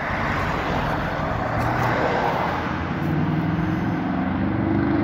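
Motor vehicle on the road: a hiss of tyre and road noise, with a steady engine hum coming in about halfway through.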